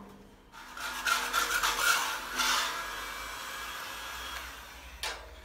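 Hand rubbing and scrubbing on the steel chassis rail of a lorry, cleaning the surface so that marking-out tape will stick. Quick uneven strokes are loudest in the first half, then give way to a steadier, quieter rubbing.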